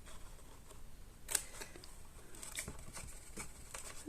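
Scissors snipping cardstock, one sharp snip about a second in, followed by lighter clicks and paper handling.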